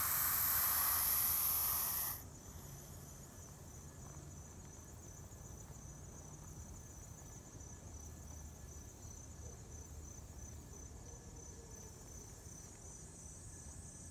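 Eastern hognose snake giving one long, loud hiss that stops abruptly about two seconds in. After it, insects keep up a steady, high, pulsing trill.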